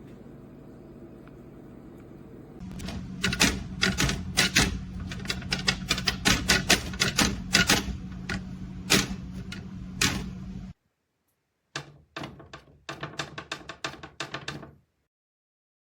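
A steady low hum, joined a few seconds in by rapid, irregular sharp clicks and taps; the sound cuts off abruptly, then a shorter run of the same clicking follows before stopping.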